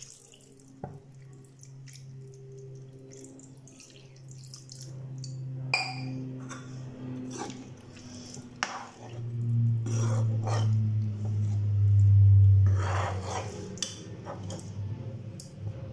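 Water poured into a pan of simmering vegetable curry, then a spatula stirring the curry with scattered clicks and scrapes against the pan. Under it runs a steady low hum that grows loudest about nine to thirteen seconds in.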